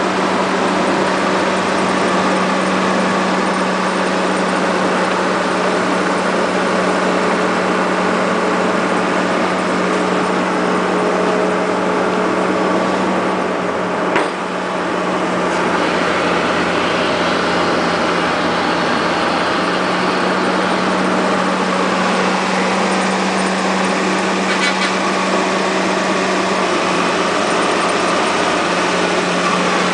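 Cat 325L hydraulic excavator's diesel engine running steadily: a constant drone with a strong low hum. A single sharp click about fourteen seconds in.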